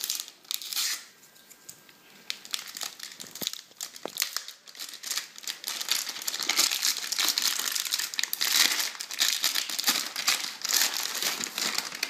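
Metallic anti-static bag crinkling and rustling in the hands as it is opened and a hard drive is worked out of it. The crinkling is sparse for the first few seconds, then becomes busier and louder through the second half.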